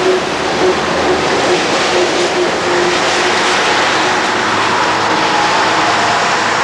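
Ikarus 200-series buses driving past, a steady diesel engine sound mixed with road noise.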